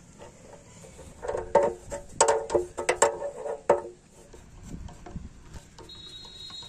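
Metallic clinks and knocks of an adjustable wrench and a fuel tap against a Yamaha RX100's steel fuel tank as the tap is tightened on. The clinks come in a quick cluster for about two and a half seconds, starting a second in, then stop.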